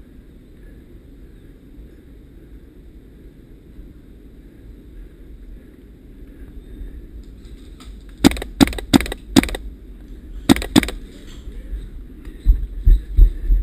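Airsoft gun shots: four sharp cracks in quick succession, then two more about a second later, over a low rumble of wind and movement on the camera, with a few low thumps near the end.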